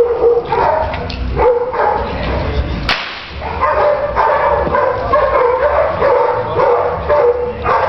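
Dog barking over and over in dense, wavering calls, with a single sharp crack about three seconds in.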